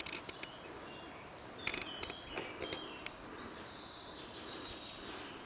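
A few sharp clicks and knocks, a cluster of them about two seconds in, over a faint steady outdoor hiss.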